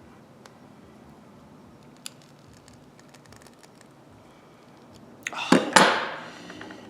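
Faint small metallic clicks of ratchet parts and tools being handled. About five seconds in comes a loud metallic clatter: a few quick strikes that ring briefly.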